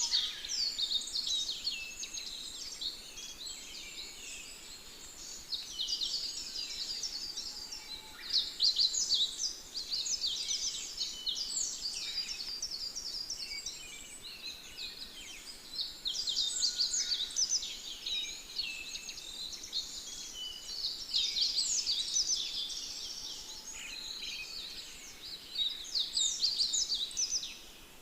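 Dense chorus of many small birds: quick overlapping high chirps and twitters, swelling and easing in waves.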